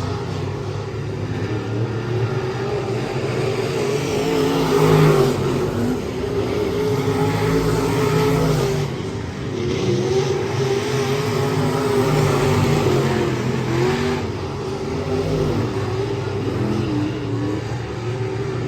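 Race car engine running hard, its pitch rising and falling over and over as the throttle is worked on and off.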